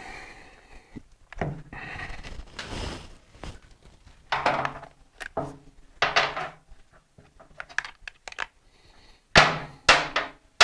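Metal hand tools and sockets clinking and knocking, an irregular series of sharp clinks and thunks, some ringing briefly, with a quick cluster of clicks near the end.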